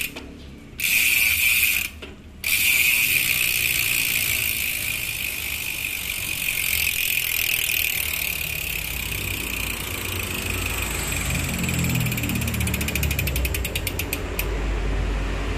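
Polygon Xtrada 6 mountain bike's rear freehub clicking as the wheel spins freely: two short bursts, then one long run of rapid pawl clicks that slows into separate clicks and stops near the end. The freehub pawl springs have been stiffened to make the click louder.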